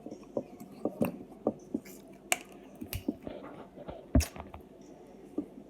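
Scattered sharp cracks and snaps of crab leg shells being broken apart by hand, with soft wet handling of the buttery seafood; the loudest crack comes about four seconds in.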